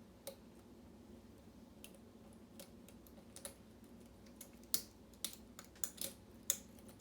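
Lock picks working inside a pin-tumbler lock: irregular small metallic clicks and taps of a hook pick and tension wrench against the pins and keyway, sparse at first and coming more often and louder in the second half.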